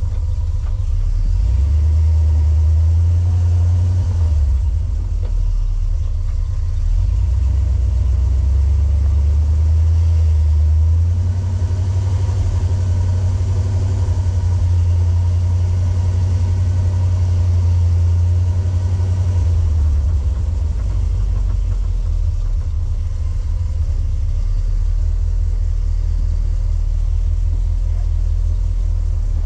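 Four-wheel-drive vehicle engine rumbling at low speed on a rocky off-road trail. The deep drone swells and eases a few times.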